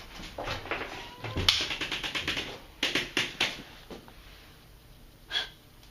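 Old Westbrook passenger elevator's mechanism clicking and rattling, with two quick runs of sharp clicks about a second and a half and three seconds in, and a single knock near the end.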